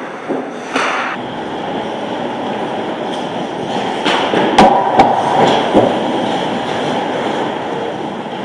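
Ice hockey play in a rink: a steady scraping noise of skates on ice. About halfway through come several sharp knocks of puck and sticks, the two loudest half a second apart, around a shot on goal.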